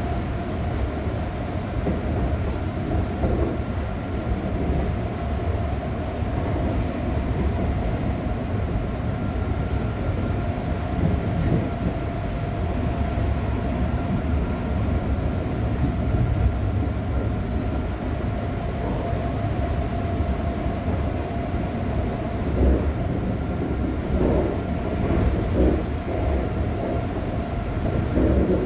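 Interior running noise of a retrofitted resistor-controlled Line 1 electric train under way, heard inside the passenger car with its windows open: a steady rumble of wheels on rail under a constant hum, with a few louder knocks and clatter near the end.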